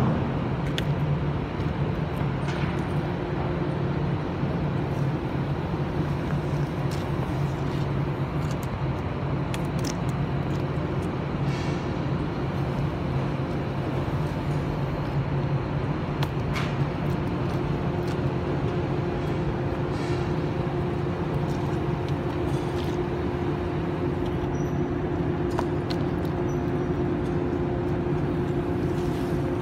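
An engine running steadily: a constant low drone that does not change.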